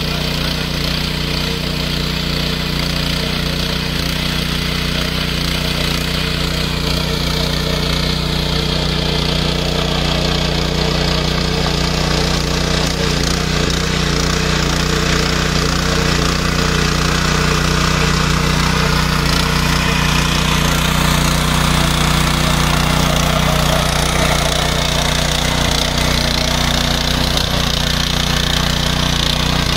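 The small single-cylinder engine of a G 105 walk-behind power tiller running steadily under load while its rotors churn a flooded paddy field, getting slightly louder partway through.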